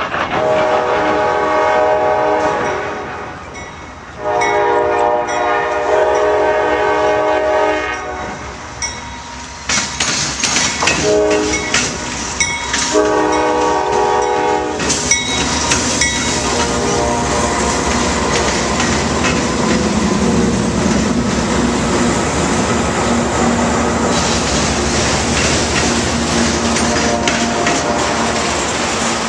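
Diesel freight locomotive horn sounding two long blasts, a short one and a long one, the standard grade-crossing signal. The lead locomotives and autorack cars then roll past loudly, with wheels rumbling and clicking over the rail joints.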